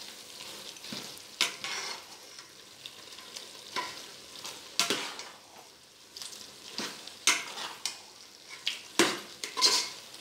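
Metal ladle stirring and scraping chopped vegetables sautéing in an aluminium idli pot, in irregular strokes about a second apart, some with a brief metallic ring, over a faint sizzle of frying.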